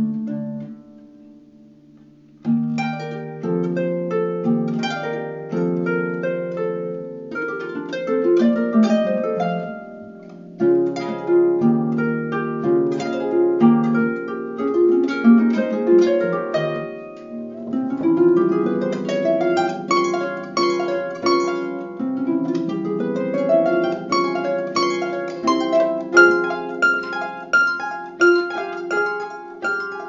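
Harp playing a slow classical piece: a chord dies away, then plucked notes and rolled chords resume about two and a half seconds in and run on, each note left to ring over the next.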